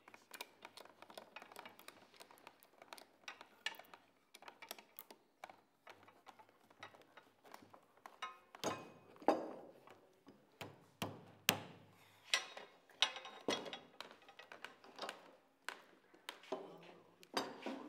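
Steel bar clamps being slid into place and screwed tight around stacked wooden blocks: irregular metal clicks and knocks from the sliding jaws and screw handles, getting busier and louder about halfway through.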